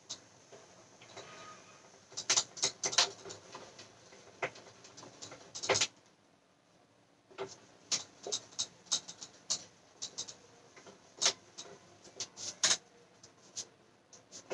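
A whiteboard being wiped clean of marker, with quick rubbing and squeaking strokes across the board. The strokes come in two spells with a short pause near the middle.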